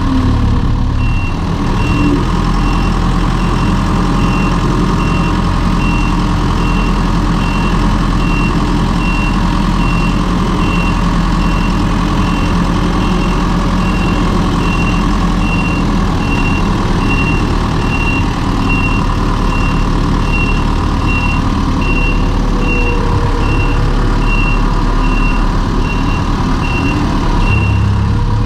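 Farm vehicle's engine running steadily under load while its reversing alarm beeps about twice a second as it backs across the silage pit during rolling.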